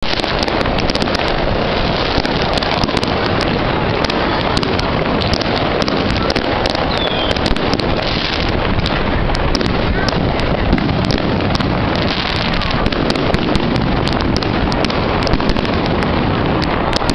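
Fireworks display: many rapid pops and crackles over a steady wash of noise, with crowd voices mixed in.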